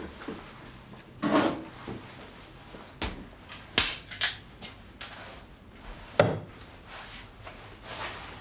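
Irregular knocks and clatters of hard objects being handled and set down, about eight in all, the loudest a little over a second in and about six seconds in.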